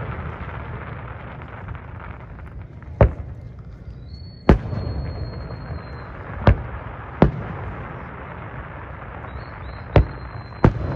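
Fireworks display: aerial shells bursting with six sharp booms at irregular spacing, one to three seconds apart, over a steady background rush.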